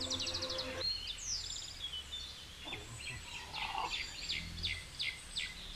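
Birds chirping and calling outdoors: a quick trill of repeated high notes at the start, a falling whistle, then a run of short sharp chirps in the middle.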